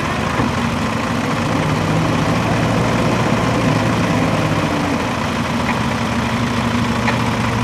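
Diesel engine of a Case 851EX backhoe loader running steadily at close range while its backhoe arm works the bucket in mud.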